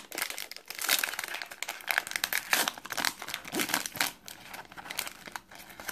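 Foil-lined wrapper of a 2017 Panini Prestige football retail pack crinkling as it is pulled open and handled to get the cards out: a dense, irregular run of sharp crackles.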